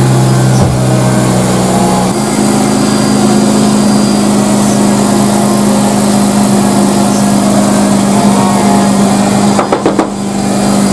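Mazda RX-8's 1.3-litre twin-rotor rotary engine running after months of standing, its steady note stepping up in pitch about two seconds in and then holding. A few sharp knocks near the end.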